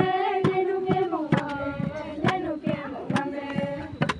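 Long wooden pestles pounding rice in a mortar in a steady beat, about two strikes a second, under voices singing a drawn-out chant.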